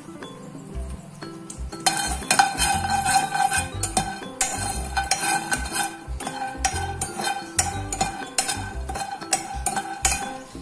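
Metal spoon stirring raw peanuts in a dry nonstick pan, the nuts rattling and the spoon scraping and clinking on the pan. The stirring starts about two seconds in and keeps up as a busy clatter.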